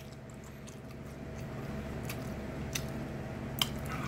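Close-miked chewing and mouth sounds of a person eating a forkful of soft cooked mixed vegetables, with a few small clicks.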